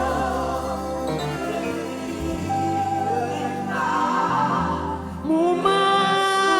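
Gospel worship song: the band plays held bass and keyboard notes between sung lines, and a voice comes in about five seconds in with a rising, then long held note.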